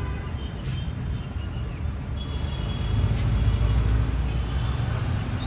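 Street traffic: a steady low rumble of passing vehicles that grows louder about three seconds in, with faint background voices.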